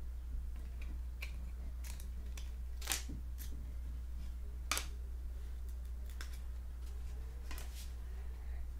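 Trading cards being handled and sorted by hand: scattered light clicks and snaps as cards are peeled off one another and set down, the two sharpest about three and almost five seconds in. The cards are sticking together. A steady low hum runs underneath.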